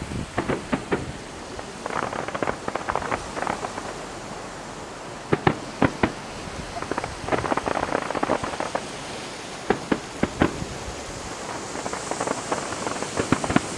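Fireworks going off: single sharp bangs, some in quick pairs, mixed with stretches of dense crackling from crackle shells.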